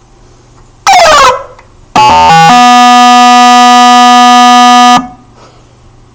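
Random 8-bit synthesized samples from a MaxMSP patch played through a vibrating sound driver. About a second in, a short buzzy blip falls in pitch; at two seconds a quick run of stepped tones settles into one steady buzzy tone, held for about two and a half seconds before cutting off suddenly.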